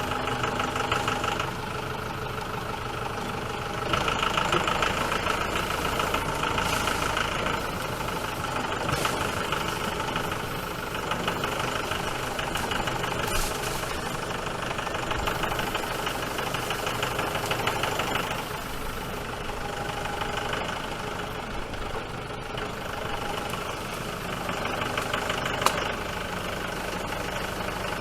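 An engine running steadily near idle, its level swelling and easing every few seconds, with a single sharp click near the end.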